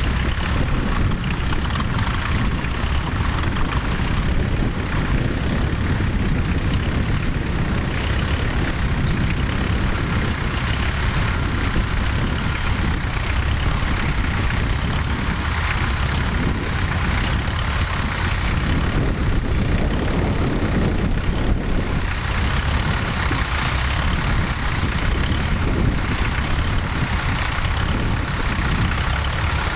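Tractor engine running steadily under heavy wind noise on the microphone.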